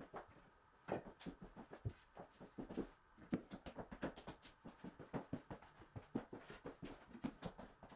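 Faint, irregular clicks and knocks, several a second, of an installer stepping about on a glue-down engineered hardwood floor and handling the boards.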